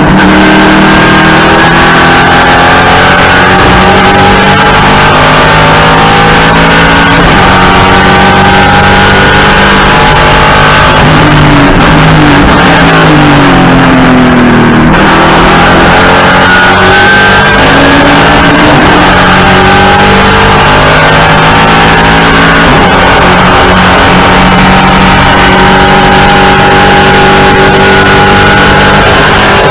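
Race car engine heard from inside the cockpit, running hard and loud, its pitch climbing and falling through gear changes. About halfway through, the pitch falls away as the car slows and downshifts for a corner, then it rises again under acceleration.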